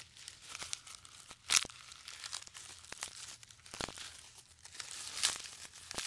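Leaves and twigs crackling and tearing as a giraffe strips and chews foliage from a tree branch: quiet, irregular crisp crackles, with louder snaps about a second and a half in, near four seconds and just past five seconds.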